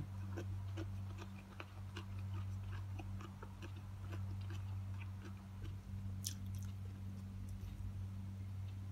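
Close-up chewing and mouth sounds of a person eating rice with her hands, many small irregular wet clicks, over a steady low hum.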